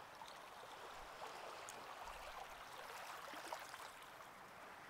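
Faint ocean surf: waves washing on a shore in a steady, soft hiss.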